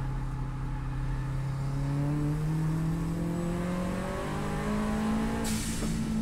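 Subaru WRX STI's turbocharged flat-four heard from on board under hard acceleration, its pitch climbing steadily, dropping on an upshift about four seconds in, then climbing again. A short hiss cuts in about five and a half seconds in.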